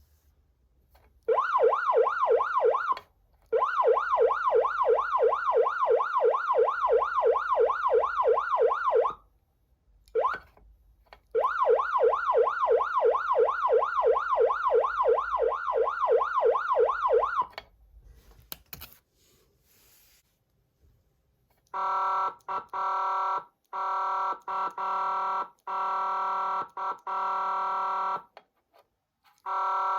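Patlite electronic siren amplifier sounding a fast yelp siren, its pitch sweeping up and down about four times a second, in two runs of several seconds each. After a click it changes to a steady, unwavering electronic tone keyed on and off in short, irregular bursts.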